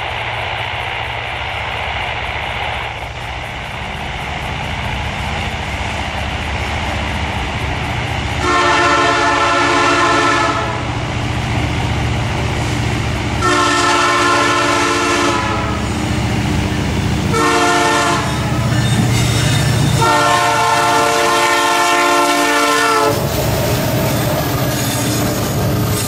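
Freight train approaching behind a GE diesel-electric locomotive, its engine running steadily. About a third of the way in, the locomotive's horn sounds four times: long, long, short, long. Near the end the locomotive passes close and the wagons' wheels clatter over the rails.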